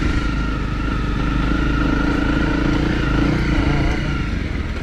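Honda CRF250's single-cylinder four-stroke engine pulling the trail bike along a muddy lane at steady revs, easing off near the end.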